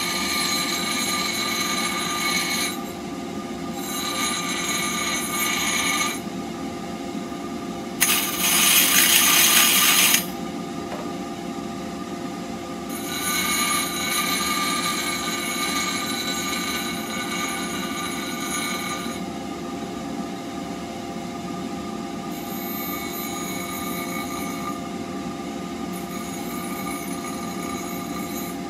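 Bench grinder running steadily while a steel blade blank for a woodturner's cutting tool is pressed to the wheel in repeated passes, each a high-pitched grinding rasp over the motor's hum. A much louder two-second stretch of grinding comes about eight seconds in.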